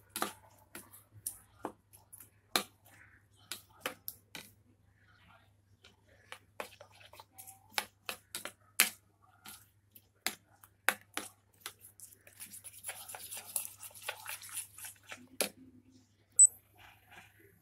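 A steel spoon beating raw egg with chopped onion in a bowl: irregular sharp clinks of the spoon against the bowl, with a stretch of scraping swish about two-thirds of the way through.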